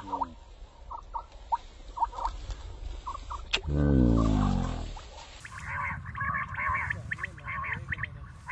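Quail chirping in short calls, with one loud, drawn-out falling cry about four seconds in, then a quicker run of repeated chirps near the end.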